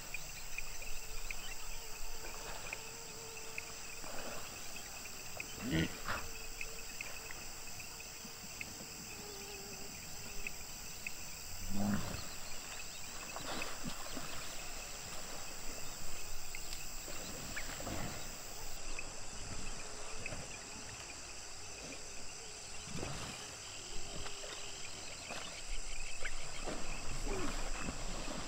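Hippopotamuses grunting and calling now and then, loudest in a low call about twelve seconds in, over a steady high-pitched background chorus.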